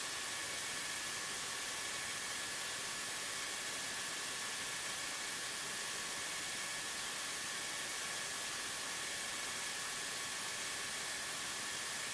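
Steady electrical hiss from an aircraft intercom or radio audio line, with a few faint, steady high-pitched whine tones.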